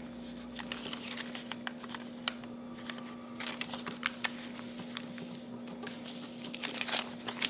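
Sheet of origami paper rustling and crinkling as it is folded and creased by hand, with many small irregular crackles and clicks, over a steady low hum.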